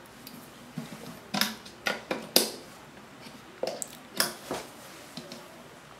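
Handling noise from audio gear: a string of about nine sharp clicks and knocks, spread over a few seconds, as the equipment and its cabling are handled between channel tests.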